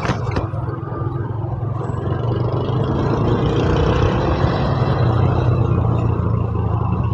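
Motorcycle riding through city traffic: steady engine hum and wind noise, growing a little louder about two seconds in and easing again near the end.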